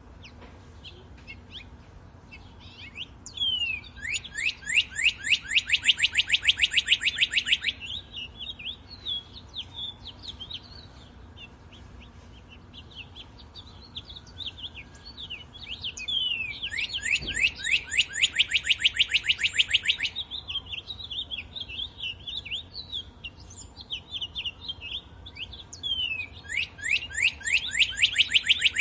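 Woodland birdsong: a loud, fast trill of rapidly repeated notes, each run about three to four seconds long, comes three times, roughly every twelve seconds. Softer short chirps and calls fill the gaps between them.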